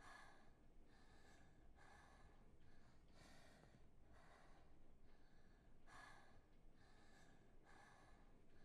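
Faint, labored gasping breaths, roughly one a second, with a thin wheezy whistle between them: a woman struggling to breathe with a spear through her throat.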